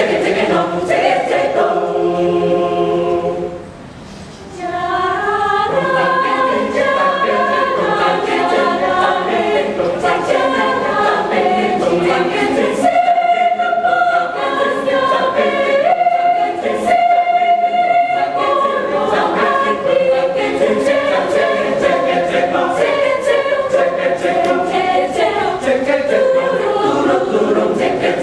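Mixed-voice choir singing a cappella in harmony, with long held chords. The singing drops away briefly about four seconds in, then resumes at full level.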